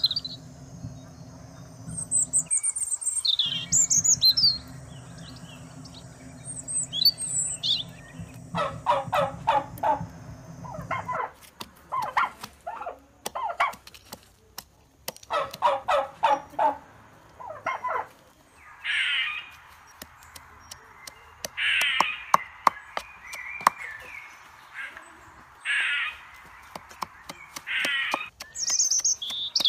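Birds call and chirp repeatedly. From about eleven seconds in, a wooden pestle knocks repeatedly in a wooden mortar, pounding red chilies and garlic.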